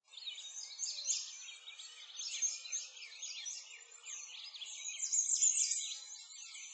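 A chorus of many small songbirds chirping and twittering at once, with quick high chirps overlapping without a break.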